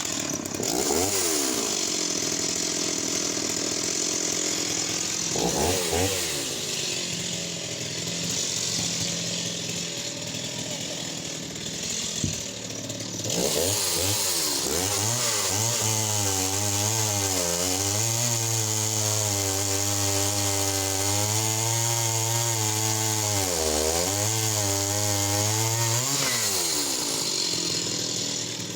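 Stihl 028 AV WoodBoss two-stroke chainsaw revved up and down a few times, then held at full throttle for a long cut through a log about 10 inches across. Its pitch sags now and then as the chain bites, and it drops back off the cut near the end.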